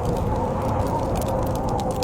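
Wood fire crackling with scattered sharp pops, clustered in the second half, over a steady low rumble of storm wind carrying a faint whistling tone.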